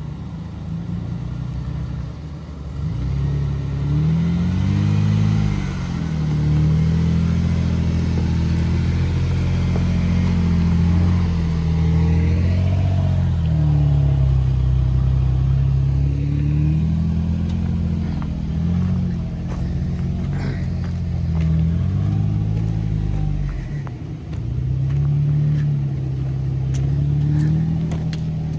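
Jeep engine running on a gravel trail, its pitch rising and falling again and again as it revs and eases off, with a few clicks and knocks in the later part.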